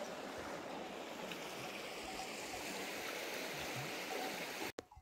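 Steady rushing of a shallow stream running over stones, which cuts off suddenly near the end.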